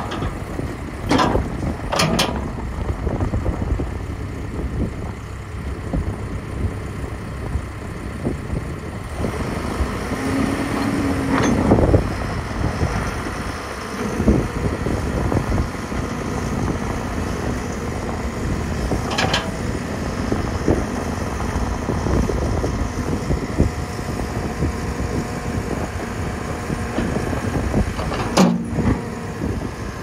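Case 580 Super N backhoe loader's diesel engine running while the backhoe boom and bucket are worked, the engine note growing louder and fuller about nine seconds in. A few brief clunks from the arm and stabilizers come through over it.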